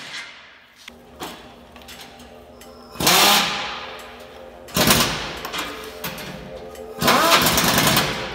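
Pneumatic impact wrench fired in three short bursts, about three, five and seven seconds in, the last the longest, tightening the exhaust fasteners under the truck; each burst fades with a short echo.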